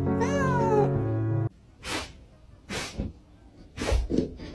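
Background music with steady held notes and a high gliding line over them, cutting off abruptly about a second and a half in. After that it is quiet except for a few short, soft noises.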